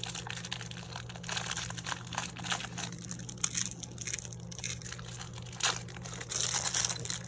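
Crinkly packaging around a small toy figure crackling and rustling continuously as the figure is worked out of it by hand.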